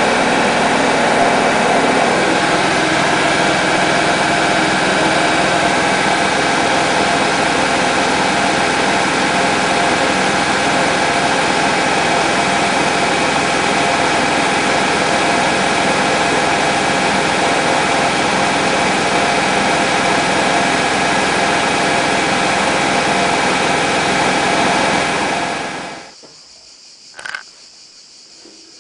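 Hotpoint-Ariston AVXXF137 washing machine spinning at high speed: a loud, steady mechanical whine with several held tones. It stops abruptly near the end, leaving a faint background and a single click.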